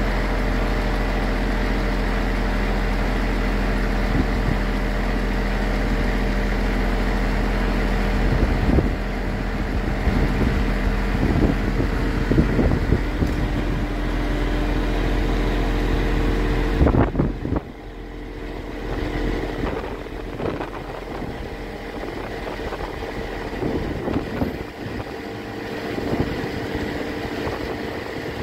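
Scania G490 truck's diesel engine running steadily with a hum from the Fassi F990 loader crane's hydraulics as the boom and jib are worked, with a scattering of knocks and clunks midway. About seventeen seconds in, the deep engine drone falls away and the sound gets quieter.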